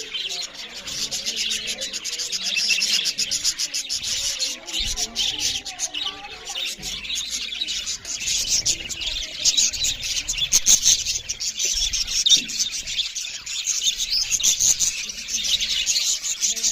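A group of budgerigars chirping and chattering, a dense, unbroken stream of quick high chirps.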